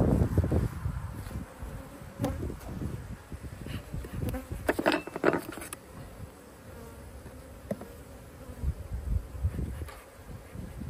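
Honeybees buzzing around an opened hive, a steady hum, with a few short knocks from handling hive equipment.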